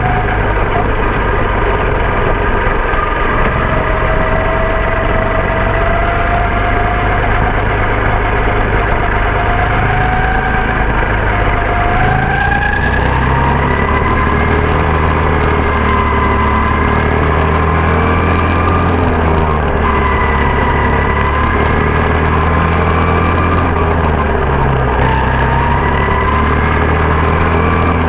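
Quarter midget race car's small single-cylinder engine running at speed, heard from on board the car. The engine note climbs slowly, jumps higher about twelve seconds in, then rises and falls gently through the laps.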